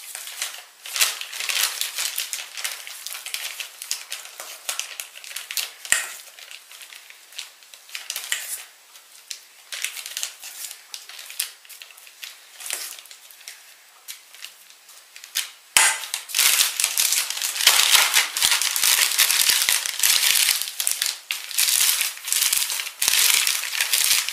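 A plastic piping bag and a plastic glove crinkling and crackling as a spoon loads the bag with soft cheese filling, with a few sharp clicks. The crinkling gets louder and denser about two-thirds of the way in.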